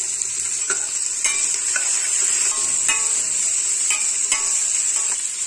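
Sliced onions and green chillies sizzling in ghee in a steel pressure cooker, with a steady hiss. A spoon stirring them clinks and scrapes against the steel pot about six times.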